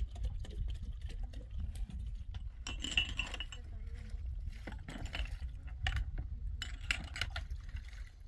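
Wind buffeting the microphone in an uneven low rumble, with scattered light clicks and clinks, a few clustered about three seconds in and again near seven seconds.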